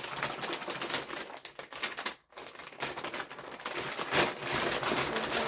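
Plastic bag crinkling and rustling as it is handled and opened, a dense, irregular run of crackles with a brief pause a little past two seconds in.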